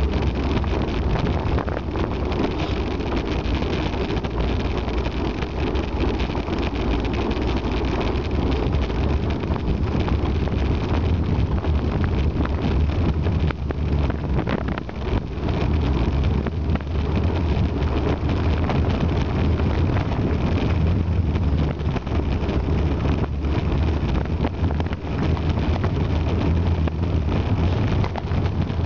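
Wind buffeting the microphone of a camera on a moving bicycle, a steady low rumble, with road noise from the ride along a tarmac lane.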